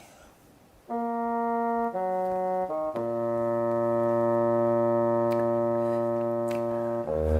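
Music: a few held instrumental chords starting about a second in, then one long chord held for about four seconds before a new, choppier phrase begins at the very end.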